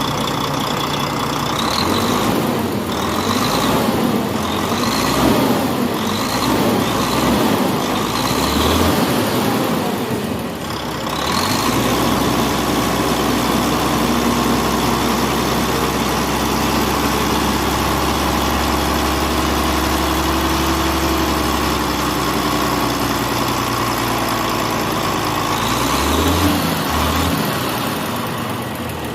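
Volvo D13 truck diesel engine being revved several times in quick succession, then held at a raised speed for over ten seconds, with a couple of short blips before it settles back toward idle. It runs without ticking, its valve clearance freshly adjusted.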